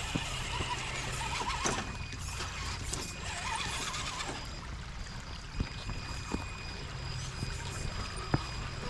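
RC crawler truck running over rough ground: a thin electric-motor whine sets in about halfway, with several sharp knocks as it climbs.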